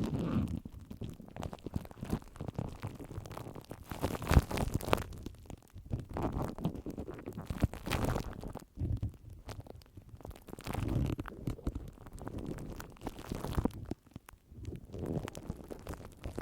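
Close-miked ASMR scratching and rubbing sounds, coming in irregular crackly swells a second or two apart, heaviest in the low end.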